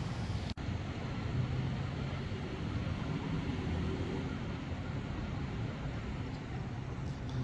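Steady low hum of idling vehicle engines over general street noise, broken by a momentary dropout about half a second in.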